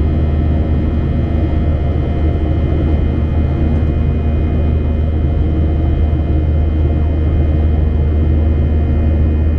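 Jet airliner cabin noise in flight: a loud, steady deep drone of engines and rushing air, with a faint, even high whine above it.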